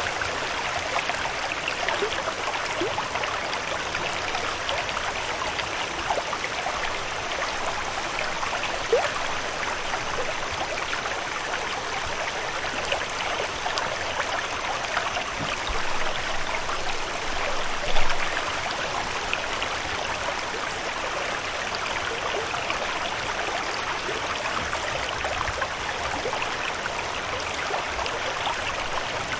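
Steady trickling, running water, an even wash dotted with tiny drips and splashes, with one brief louder splash about two-thirds of the way through.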